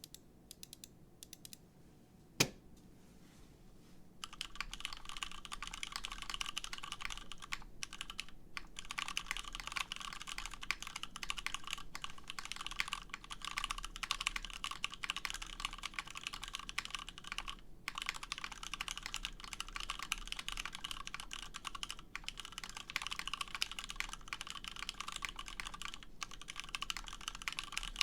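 Mechanical keyboard with lubed, filmed retooled Cherry MX Black linear switches on an aluminum plate with case foam, being typed on. A few faint clicks and one sharp click come first, then fast, continuous typing starts about four seconds in.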